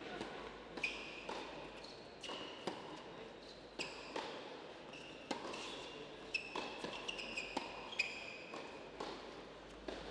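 Tennis rally on an indoor hard court: a tennis ball struck by rackets and bouncing, sharp hits about every half second, with short high squeaks between them, echoing in the hall.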